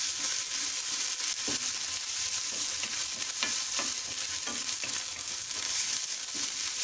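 Chopped onions and ginger-garlic paste sizzling in oil and butter in a metal kadhai, with a steady high hiss. A spatula stirs and scrapes across the pan bottom in short strokes every second or so.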